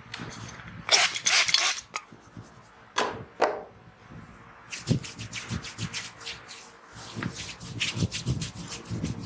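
Hands rubbing and scratching through hair and scalp during a head massage. A loud rustling rub comes about a second in, then shorter strokes, then a quick run of crackling rubs through the hair.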